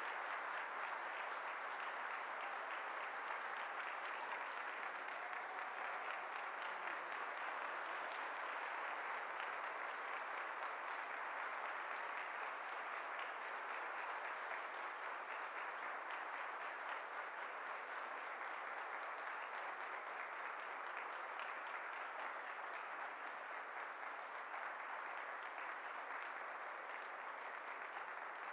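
A large audience in a hall applauding: a long, even round of clapping that eases slightly toward the end.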